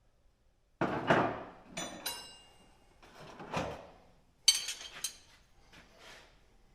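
Metal clanking and rattling: a loud knock about a second in, then several more knocks, two of them with a short high metallic ring, as hand tools and metal parts are handled and set down.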